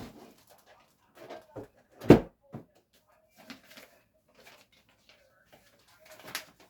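Irregular knocks and clunks of things being handled, with one heavy thump about two seconds in and another sharp knock near the end.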